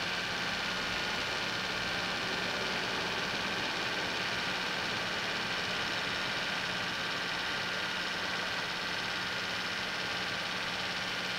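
Steady hum and hiss of an idling emergency vehicle's engine close by, unchanging throughout, with no sudden sounds.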